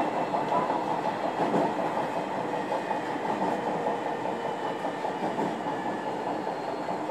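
Running noise inside a JR Kyushu 305 series electric train, in motor car MoHa 305-106: a steady rumble of wheels on the rails, with a faint high whine.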